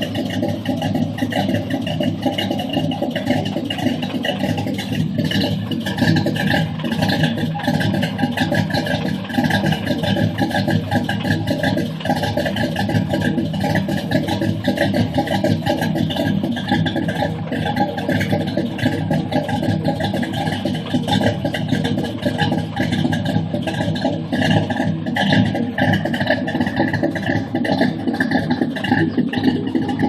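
Chevrolet 305 HO V8 with a Lunati Voodoo camshaft idling while warming up, heard at the tailpipes of an exhaust with headers, no catalytic converter and Flowmaster 40 series mufflers. The idle has the uneven, lumpy lope of a big cam ('camming'), pulsing steadily throughout.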